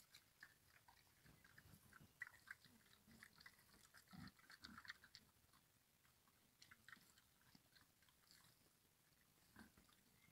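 Faint chewing and crunching from a group of young wild boar eating off a concrete slab: many small clicks and crunches, busiest in the first half.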